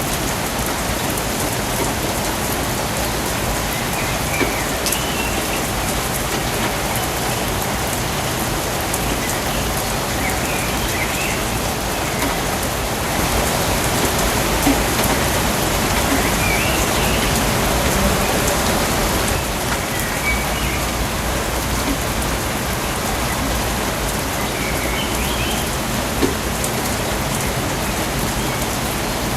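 Steady rainforest rain, an even hiss that swells slightly for a few seconds midway, with brief high chirps every few seconds.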